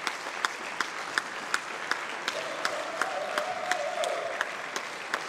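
Audience applause with clapping in a steady rhythm, about three claps a second. A long held note runs for about two seconds in the middle.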